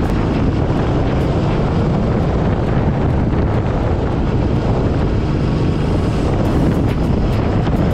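Steady, loud wind noise on the microphone of a camera on a moving motorbike, with engine and road noise underneath.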